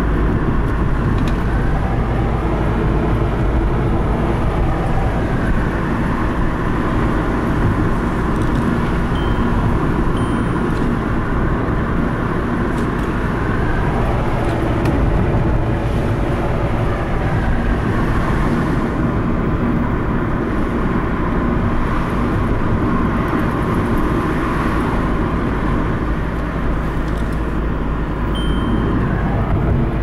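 Cabin noise of a VW Golf Mk5 on the move: steady road and engine rumble. Two short high beeps come about ten seconds in, and another near the end.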